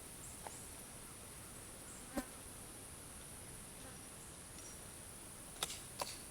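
Steady high-pitched buzz of insects, with a few faint sharp clicks: the sharpest about two seconds in and two close together near the end.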